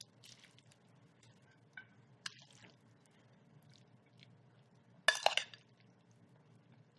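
Metal tongs lifting dressed salad out of a glass bowl onto a plate: faint wet squishing and small clinks, with a louder burst of quick clinks about five seconds in.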